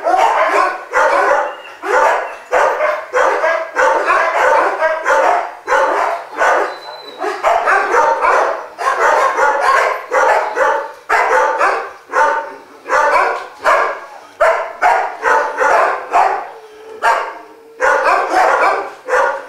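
A pack of dogs barking together: a dense, continuous chorus of overlapping barks, several each second, with no let-up.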